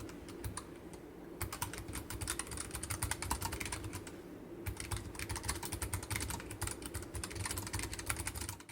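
Keychron K7 Optical low-profile keyboard with Keychron's Mint optical switches and masking tape on the back of the PCB, typed on in fast runs of keystrokes: a few scattered key presses, then a quick flurry, a short pause, and another flurry that cuts off suddenly at the end.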